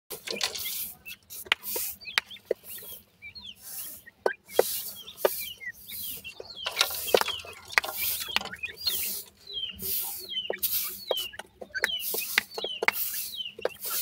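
Young grey francolin chicks scratching and pecking in loose dry soil, with repeated short scrapes of dirt and sharp pecking taps. Many short high chirping calls run through it.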